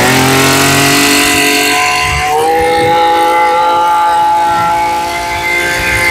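Maruyama BC23CS brush cutter's small petrol engine revving to high speed and held at full throttle with a steady high whine, its pitch stepping up once more about two seconds in.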